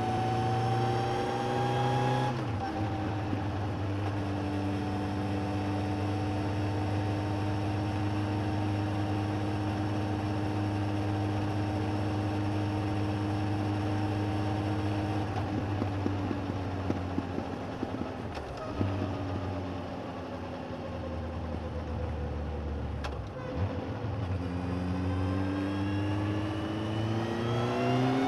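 Suzuki GSX1250FA motorcycle's inline-four engine under way, heard from under the seat: it accelerates, drops back at a gear change about two seconds in, then cruises steadily. About halfway through the revs fall away, run low for several seconds, and climb again in a long pull near the end.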